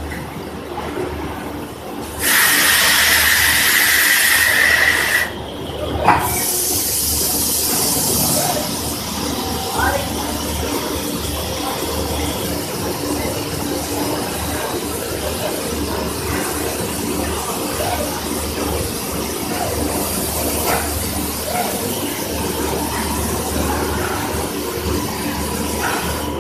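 Robot-mounted demolding-agent spray nozzle blasting compressed air and release agent, a loud hiss with a whistling tone lasting about three seconds. A sharp click follows, then a second, higher hiss of about two seconds. A steady low machinery hum runs underneath.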